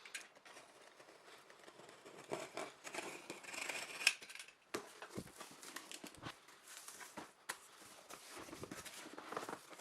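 Cardboard box and packaging being opened and handled by hand: irregular scraping, rustling and small clicks.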